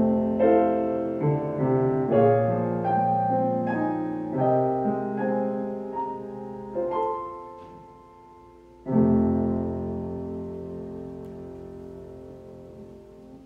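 Solo piano playing slow chords that wind down. After a short pause, a final chord is struck about nine seconds in and left to ring and fade away.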